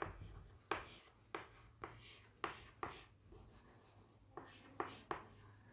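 Chalk writing on a chalkboard: a series of sharp taps and short scrapes as each symbol is drawn, about two a second, with a pause a little after the middle before a few more strokes.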